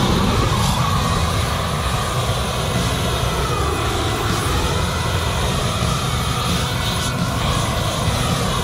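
Boring Company "Not a Flamethrower" propane flamethrower firing a continuous jet of flame: a loud, steady rushing hiss of burning propane that starts abruptly and wavers slightly in pitch.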